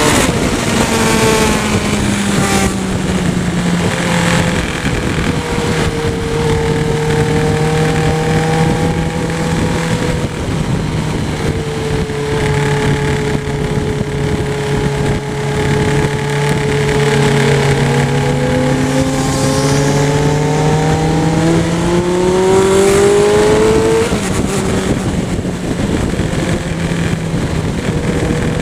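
Motorcycle engine running under way, heard from the bike itself, with wind rushing over the microphone. Its pitch holds fairly steady with slow rises and falls, then climbs for a couple of seconds and drops suddenly about five seconds before the end.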